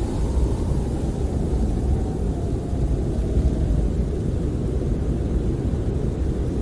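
Snowstorm wind heard from inside a camper: a steady low rumble, with a faint howl rising and falling in the first few seconds.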